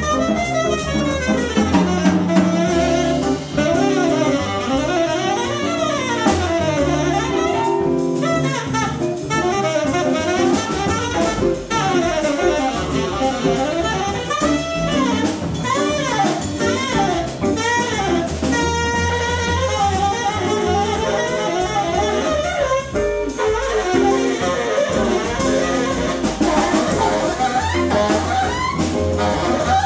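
Tenor saxophone soloing in quick lines that rise and fall, over upright bass and drum kit in a small jazz group.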